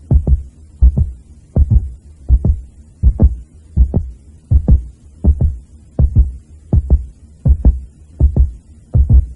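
Heartbeat-like sound: deep double thumps, lub-dub, repeating steadily about every three-quarters of a second.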